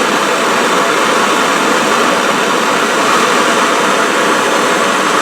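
Handheld gas blowtorch burning steadily with an even hiss, its flame heating a steel nut red-hot.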